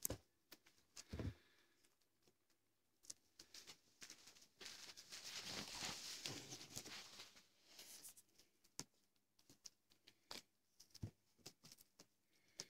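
Faint rustling and crinkling of a small paper packet being pawed and bitten by a long-haired cat, most continuous for a few seconds in the middle, with scattered soft taps and bumps on carpet.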